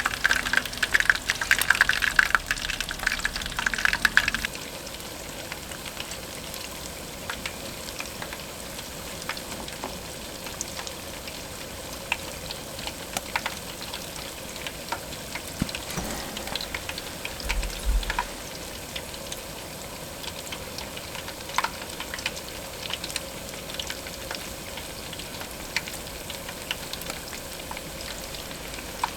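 Food frying in hot oil: a steady sizzle with scattered pops. It is louder and busier for the first four seconds, then drops suddenly to a quieter, even sizzle.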